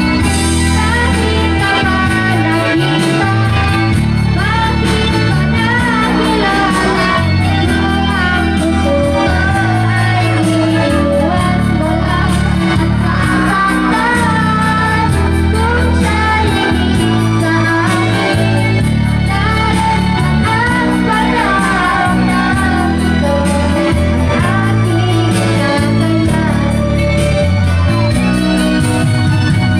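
A woman singing into a microphone over backing music with guitar and a bass line that changes note every second or two.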